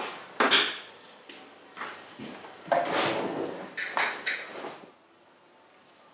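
Drawers of a steel tool chest sliding open and shut, with the contents rattling and a few sharp clicks about four seconds in.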